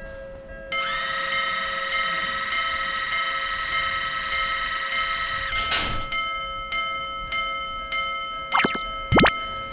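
A cartoon train horn held steady for about five seconds, cutting off sharply with a whoosh. Then a railroad crossing alarm rings at about two strikes a second.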